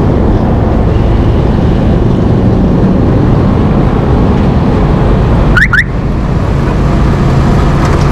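Wind buffeting the microphone over a small motorcycle's engine running at road speed. A little past halfway come two quick rising chirps.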